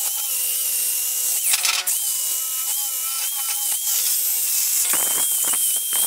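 Electric drill spinning a wire wheel brush against the steel handle of a 1943 Estwing hatchet to scrub off rust: a steady motor whine under a bright, scratchy hiss of wire on metal. The brush bites harder briefly about a second and a half in, and chatters over the steel near the end.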